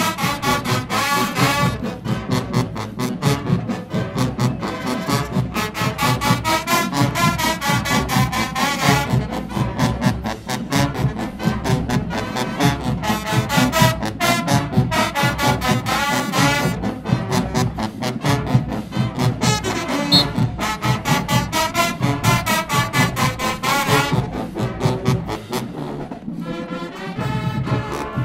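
A marching band playing: sousaphones and other brass carry the tune over a steady drum beat. The music thins out briefly near the end.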